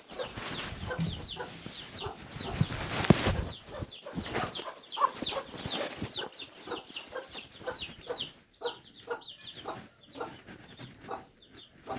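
Chickens clucking, with a quick run of short, high, falling peeps several times a second. A brief knock about three seconds in.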